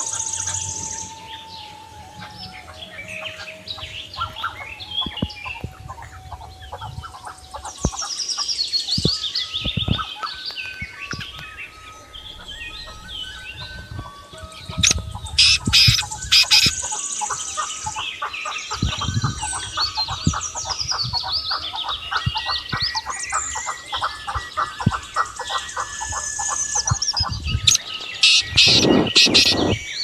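A chorus of small birds chirping, trilling and whistling, several calling at once. Through the middle one bird keeps up a long run of rapid repeated notes, and a loud harsh call breaks in near the end.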